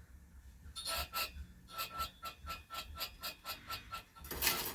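Homemade treadmill-motor wire stripper running with an even ticking, about five a second, as its rollers turn. A louder scraping burst comes near the end.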